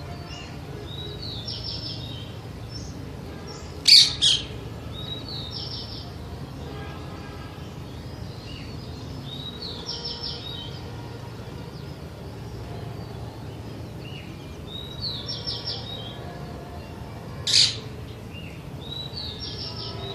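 Green parakeet squawking: two harsh screeches close together about four seconds in and one more near the end. Other birds give short high chirping runs every few seconds in between.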